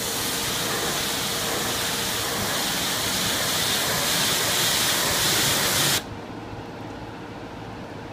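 Pressure washer lance spraying a jet of water onto a car's paintwork: a loud, steady hiss that cuts off suddenly about six seconds in, leaving a much quieter steady background noise.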